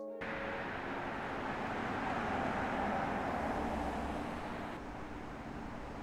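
A BMW M760e xDrive driving past: tyre and road noise swells to a peak about halfway through, then eases to a quieter steady rush near the end.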